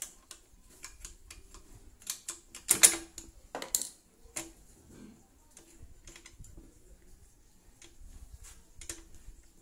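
Irregular sharp clicks and taps of hand tools at work on a motorcycle, loudest in a quick cluster around the middle.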